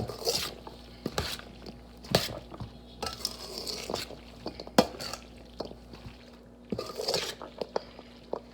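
Shell pasta salad being stirred with a utensil, with irregular scraping and a few sharp clicks and knocks against the dish as the added seasoning is mixed in.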